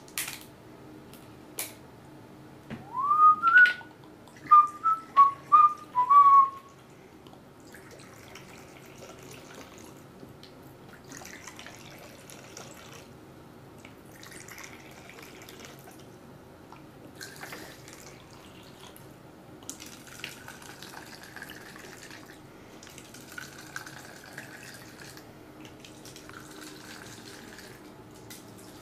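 A sharp pop as the liquor bottle is opened, then a whistle: one rising note followed by about five short high notes. After that, faint intermittent trickling of liquor being poured from the bottle into small shot glasses.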